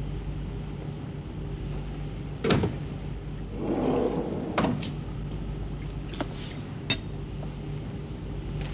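Steady low machinery hum of a ship's interior, with a few sharp knocks and clicks like a door being handled; the loudest knock comes about two and a half seconds in, with others near the middle and later on.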